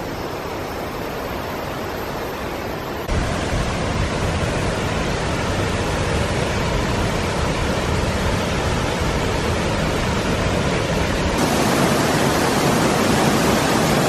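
Dambri Waterfall's water rushing and crashing in a steady dense hiss. It is quieter for the first three seconds, then jumps louder and fuller, and grows brighter again near the end.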